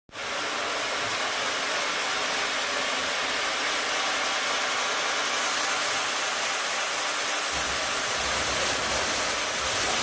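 Bongioani sawmill machinery running with a steady, hissing noise. A low rumble joins in about seven and a half seconds in.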